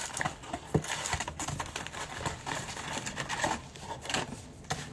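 Wrapped trading-card packs being handled and sorted by hand: light crinkling of the wrappers with scattered soft taps and clicks.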